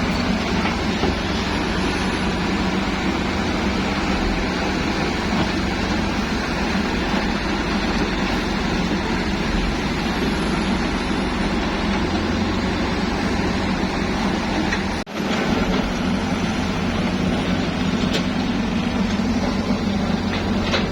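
Excavator's diesel engine running steadily, with a brief break about fifteen seconds in.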